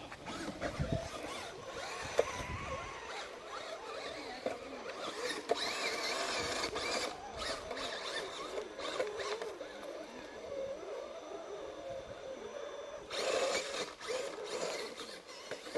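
Small electric motor and gears of a scale RC crawler truck whirring unevenly as it drives the course, with scattered clicks.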